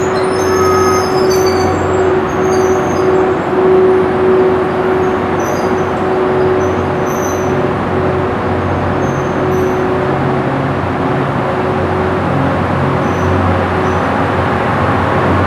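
EF81 electric locomotive pulling away at low speed, followed by E26-series sleeper coaches rolling past: steady train running noise, with a steady hum from the locomotive that fades out about ten seconds in as it moves off.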